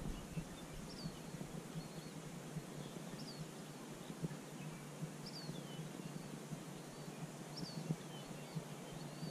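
Faint outdoor ambience with a small bird calling repeatedly: a short, high chirp about every two seconds over a low steady background.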